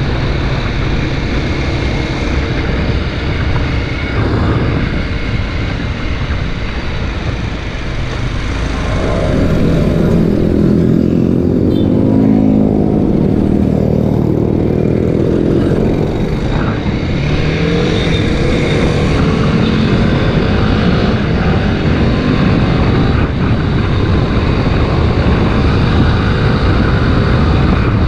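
Kawasaki Ninja 250 RR Mono's single-cylinder engine running on the move under heavy wind noise on the microphone. About nine seconds in, the engine note comes through more clearly, rising and falling in pitch as the bike speeds up and slows.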